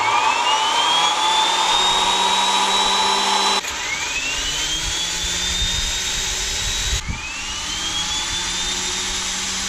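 TS-20B aircraft turbostarter, a small gas turbine running on propane, spooling up: a whine rises and levels off over a rushing jet noise as the turbine reaches idle within a few seconds. The rise is heard three times, with abrupt cuts between.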